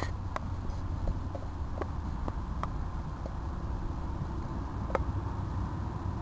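Low, steady rumble of an approaching VRE commuter train led by GP40PH-2 diesel locomotive V20, heard from a distance, with scattered light clicks.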